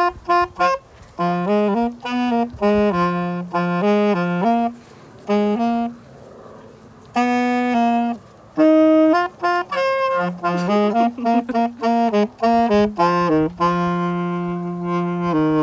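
Tenor saxophone played solo, a slow jazzy melody in short phrases of separate notes with a couple of brief pauses, ending on a long held low note.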